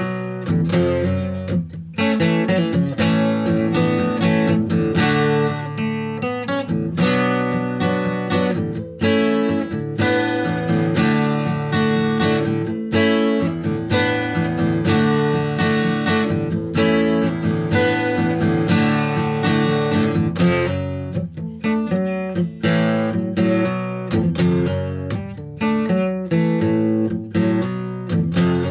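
Instrumental break of a song: acoustic guitar strumming and picking chords with no singing.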